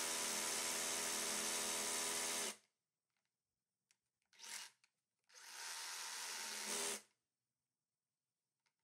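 DeWalt Atomic cordless SDS hammer drill hammer-drilling a half-inch bit into a concrete block. It runs steadily for about two and a half seconds and cuts off abruptly, then comes back for a short burst about four and a half seconds in and for about a second and a half around the sixth second.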